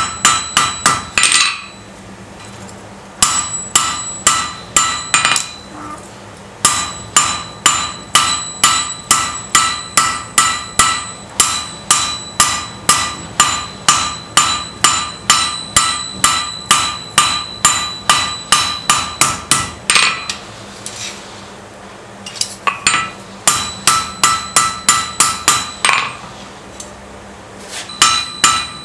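Hand hammer forging a red-hot steel blade on an anvil: runs of blows at about three a second, each with a bright metallic ring, broken by short pauses between runs.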